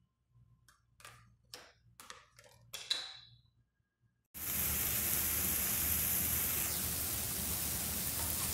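A few faint ticks, then about four seconds in a loud, steady sizzle starts suddenly: diced tomato, onion and garlic frying in hot oil in a wok.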